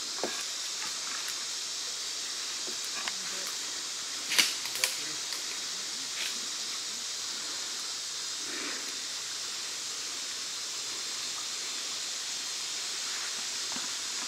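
Footsteps through leaf litter and brush, with two sharp snaps about half a second apart about four seconds in, over a steady high-pitched hiss.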